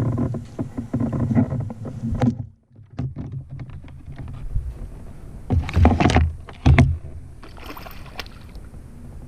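Water splashing and knocking as a hooked bass is played and brought in, with two loud splashes about six and seven seconds in.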